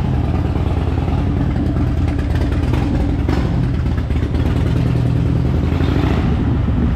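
2009 Harley-Davidson Fat Bob's Twin Cam 96 V-twin running steadily at low speed, loud and low-pitched.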